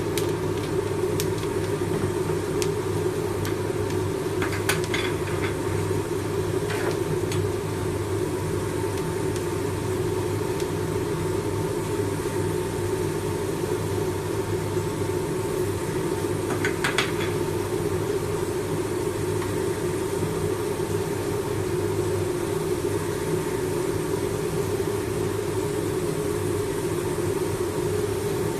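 Coffee roasting machine running with a steady mechanical hum and a faint constant whine. A few short clicks stand out, a few seconds in and again past the middle.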